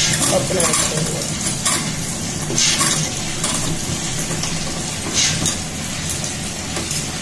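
Tabletop wet grinder running, its stone rollers grinding soaked rice in a steel drum: a steady motor hum with a wet swishing scrape and a few louder swishes along the way. This is the first stage of making the batter, rice ground alone before the urad dal is added.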